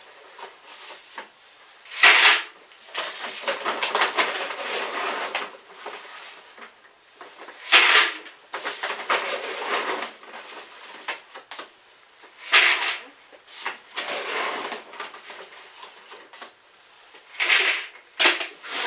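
Dry horse feed being scooped from a sack and poured into a plastic bucket: a short rush of pellets every five seconds or so, with softer rustling of the feed sacks between.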